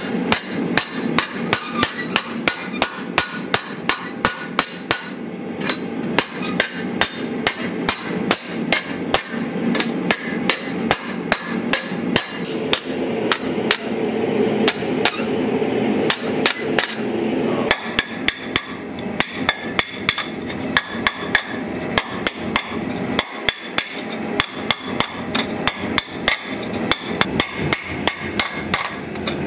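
A round-faced hammer beating a red-hot shield boss over a round stake on an anvil: a steady run of sharp metal-on-metal blows, with a steady rushing noise underneath. The blows thin out for a few seconds in the middle, then pick up again.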